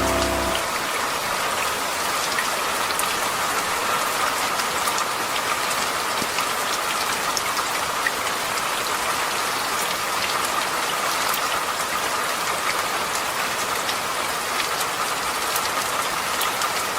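Steady rain falling, with a constant hiss and many fine scattered drop ticks.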